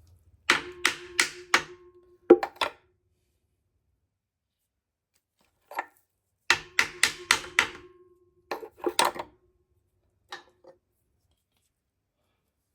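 Quick runs of sharp metal taps, four or five in a row, with singles and pairs between and a short metallic ring after several strikes: hammer work on metal parts of an engine's bottom end.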